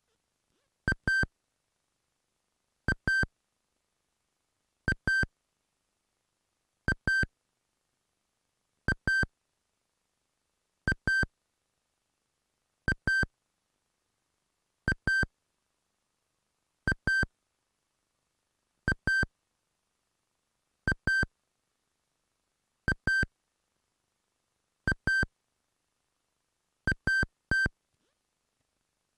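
Sony WM-EX550 Walkman's electronic beep, taken straight from its headphone output: a pair of short high-pitched beeps every two seconds, fourteen times, with dead silence in between.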